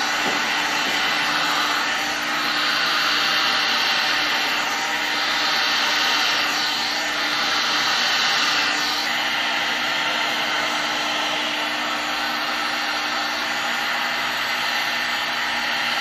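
Heat gun blowing steadily over freshly poured floor epoxy, used to level it and push down high spots. The rush of air swells and shifts in tone every few seconds.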